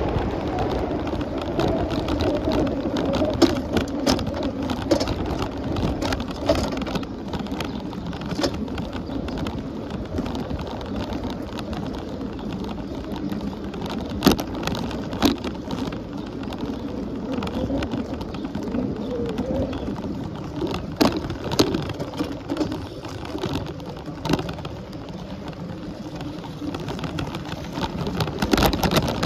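Steady rushing and rumbling of a bicycle ride, with scattered sharp clicks and knocks throughout.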